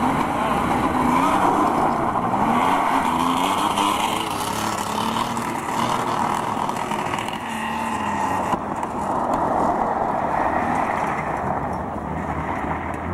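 Classic Porsche 911 rally car's engine revving hard, its pitch climbing and dropping again several times as it is driven around a loose gravel test, with its tyres crunching and scrabbling on the gravel.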